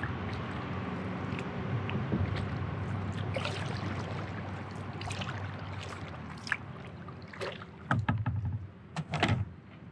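Kayak being paddled on a river: a steady wash of water noise with intermittent paddle strokes, and a few louder thumps near the end.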